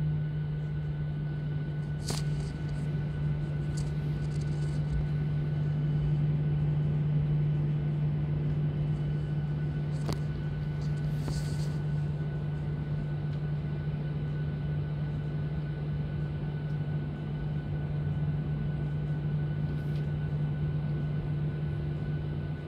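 Jet engines of a Ryanair Boeing 737 at takeoff thrust, heard inside the cabin during the takeoff roll and lift-off: a steady loud drone with a strong low hum. There are a few short rattles from the cabin.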